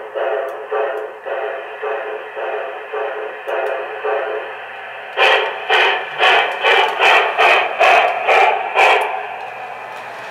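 Model steam locomotive's Proto-Sound 1 sound system playing steam chuffing through its small onboard speaker, an even chuff about twice a second. About five seconds in the chuffs turn louder and a little quicker as the engine pulls away, then soften near the end.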